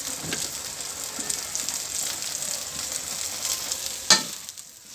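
Cubes of raw plantain sizzling in a frying pan while a perforated steel ladle stirs them through the spice powders, with small scraping ticks. A single sharp knock about four seconds in, after which the sizzle drops quieter.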